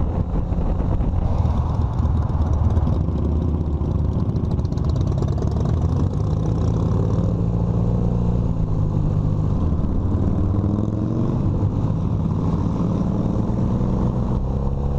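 Honda Hondamatic motorcycle engine running while riding in traffic, heard from on the bike: a steady low engine note whose pitch rises twice in the second half as the bike accelerates.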